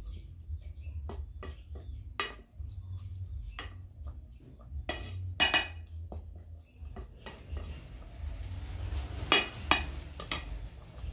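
Wooden spatula stirring rice and vegetables in an aluminium saucepan, knocking and scraping against the sides of the pot in scattered clicks, loudest around five and nine seconds in, over a low steady rumble.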